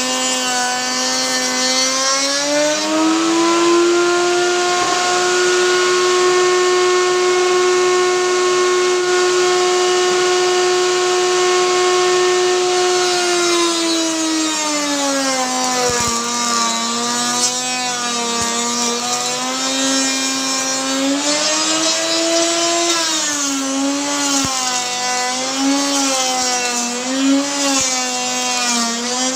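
Electric wood router running with a steady high motor whine; the pitch rises about two seconds in and holds, drops back around the middle, then wavers up and down near the end as the bit is fed through a groove in the wood.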